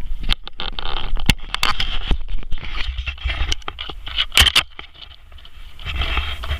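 A vehicle driving off-road over rough ground: irregular knocks and clatter with scraping noise over a low rumble, easing off for a moment a little past the middle.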